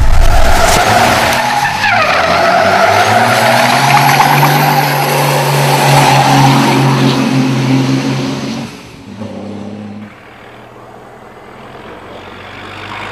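Racing truck's diesel engine working hard while its tyres screech in a slide, the screech loudest in the first two seconds. After about nine seconds it drops away to a much quieter, steady engine sound.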